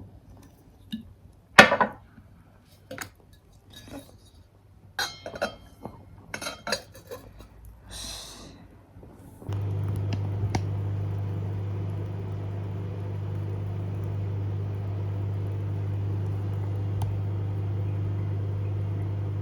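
Dishes, glassware and utensils clinking and knocking in a kitchen. About halfway through, a steady low hum starts, typical of a microwave oven running.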